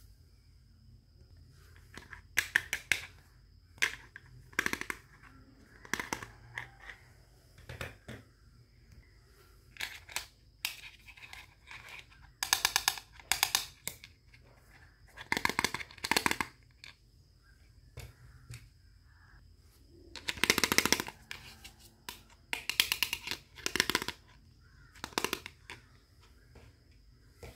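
Small plastic toy dishes and toy food clicking and clattering as they are handled and set down, in irregular bursts of sharp clicks with pauses between.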